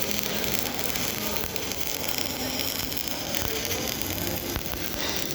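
Electric arc welding on galvanised and mild steel: the arc keeps up a steady crackling hiss, with a few sharper clicks in the second half.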